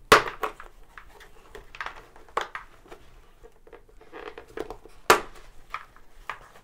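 Padded crown liner of an HJC i70 motorcycle helmet being unfastened and pulled free from the shell by hand: a few sharp clicks as its fastenings let go, the loudest right at the start and others about two and a half and five seconds in, among lighter rustling and handling noise.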